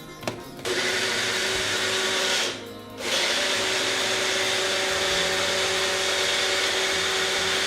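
Electric grinder blending tomato chutney ingredients. It runs with a steady whine for about two seconds, stops briefly, then runs steadily again.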